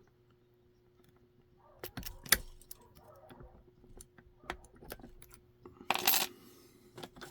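Metal clicks and clinks of a small lock being worked open with a zip-tie shim, with a louder metallic rattle about six seconds in.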